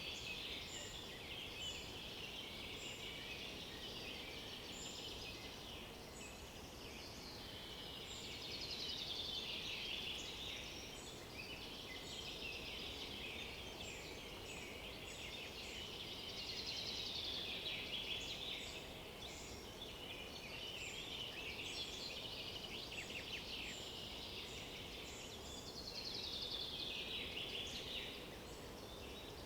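Several woodland songbirds singing at once, their songs overlapping continuously. Louder falling, trilled phrases come every several seconds over a faint steady hiss.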